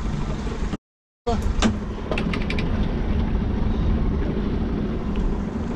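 Steady low rumble of wind and water on a small fishing boat at sea. The sound cuts out to silence for about half a second about a second in. It then returns with a quick run of sharp mechanical clicks from the fishing reels being worked.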